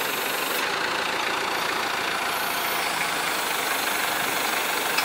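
Truck diesel engine idling steadily.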